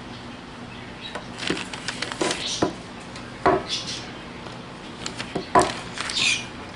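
Irregular sharp clicks and knocks of the plastic and metal parts of a BMW X5 air suspension compressor being handled during disassembly, with a few short high squeaks; the loudest knocks come about three and a half and five and a half seconds in.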